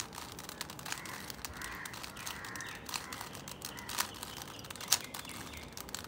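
Plastic 3x3 Rubik's cube turned by hand: irregular clicks and clacks as its layers rotate, the sharpest about five seconds in.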